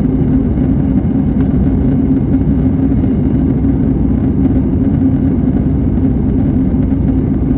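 Airbus A320 cabin noise heard from inside the cabin: a steady, loud drone of the jet engines and the airflow around the airliner in flight.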